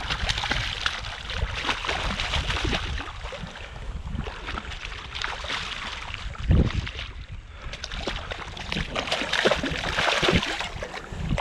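A hooked bluefish thrashing and splashing at the surface of shallow water as it is brought in by hand, with a loud splash a little past the middle. A low wind rumble on the microphone runs underneath.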